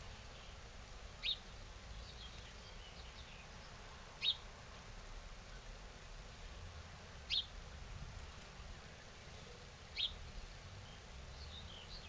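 A small garden songbird calling: a short, sharp chirp repeated four times, about every three seconds, with fainter chirps from other birds in between.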